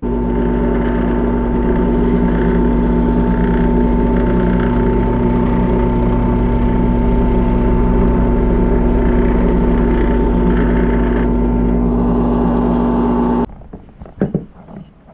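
Drill press motor running at a steady pitch while holes are bored in small wooden corner brackets. The motor cuts off suddenly near the end, followed by a few light knocks and clatters.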